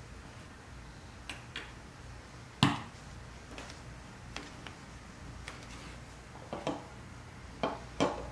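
Light clicks and knocks of small brass fittings being set into the brass-edged wooden stock of a carpenter's square and of the stock shifting on the bench. The sharpest knock comes about two and a half seconds in, and a few more follow near the end.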